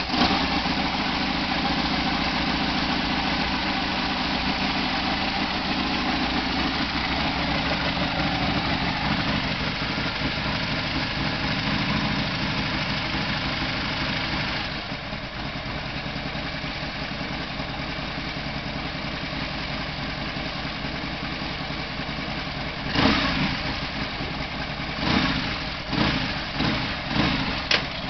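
Harley-Davidson V-twin engine of a chopper/bobber motorcycle idling steadily just after start-up. About halfway through, the idle drops a little, and near the end it is given a few short blips of throttle.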